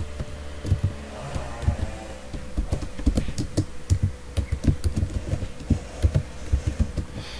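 Typing on a computer keyboard: a quick, irregular run of key clicks, with a faint steady hum behind it.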